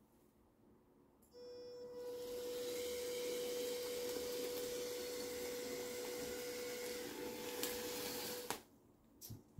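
Small electric drive motors of a 3D-printed WALL-E robot whirring steadily with a thin steady whine. The sound starts about a second in and cuts off suddenly near the end, followed by a couple of light clicks.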